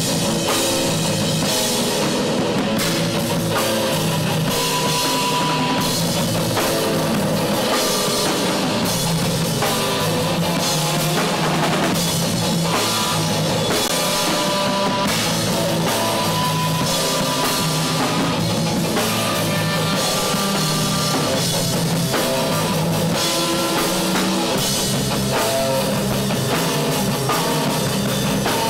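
Live instrumental rock trio playing loud: distorted electric guitar, bass guitar and a drum kit pounding a steady beat.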